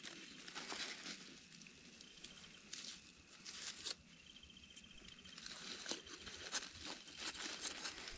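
Irregular scraping, rustling and small knocks of a stick and a metal spoon working in loose wood ash, with crinkles of aluminium foil as foil-wrapped peppers are lifted out of the embers.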